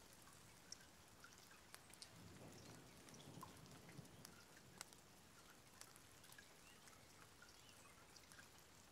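Near silence: faint evening ambience with scattered small clicks and a soft low swell a couple of seconds in.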